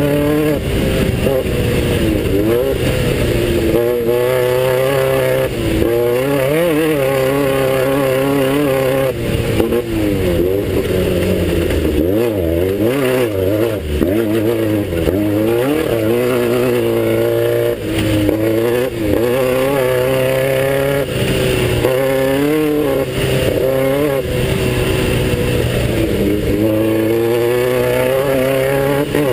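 Class 9 off-road race buggy's air-cooled Volkswagen engine running hard, its revs climbing and dropping over and over as the car races over rough desert track, with occasional knocks from the chassis.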